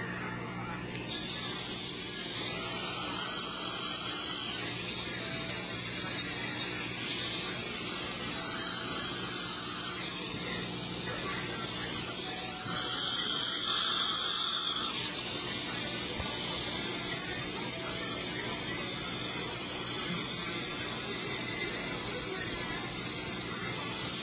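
Loud steady hiss over a faint low hum. It starts suddenly about a second in and drops briefly near the middle before coming back.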